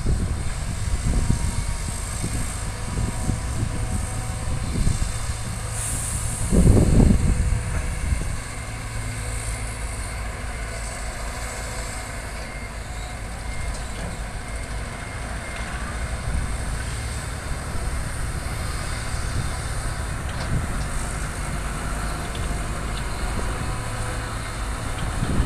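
Diesel engines of Caterpillar hydraulic excavators running under load as they dig and load dirt into a dump truck: a steady low rumble with a louder low surge about seven seconds in.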